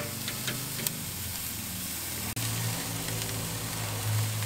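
Chicken leg quarters sizzling on a charcoal grill grate, with a few sharp clicks of metal tongs in the first second. A little past halfway a low steady hum joins the sizzle and holds.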